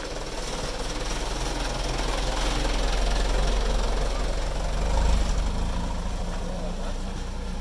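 A vehicle engine running, growing louder to a peak about five seconds in and then easing off.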